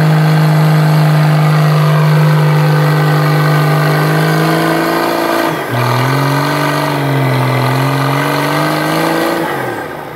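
Nissan Patrol's 3.3-litre SD33 six-cylinder diesel with a Holset HX50 turbo, held at high revs under load in mud. The pitch stays level for about five seconds, dips suddenly, wavers lower for a few seconds, then the revs fall away near the end.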